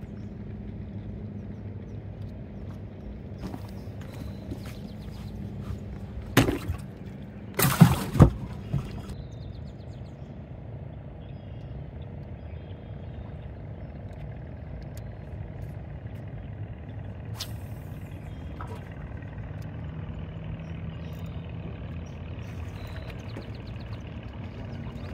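A motor running steadily with a low hum, with a few loud knocks about six seconds in and again about a second later.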